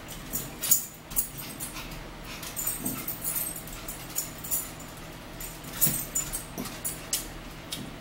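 Eating sounds: forks clicking and scraping on ceramic dishes, and crisp chewing of salad greens, as a string of irregular sharp clicks and crunches.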